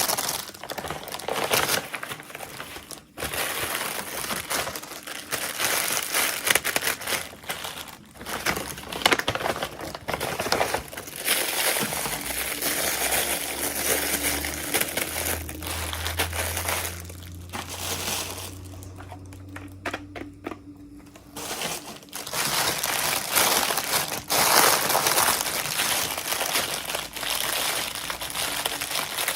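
Plastic toy packaging crinkling and rustling as it is handled and opened, in close, dense spells with a brief lull. A low hum sits underneath for several seconds in the middle.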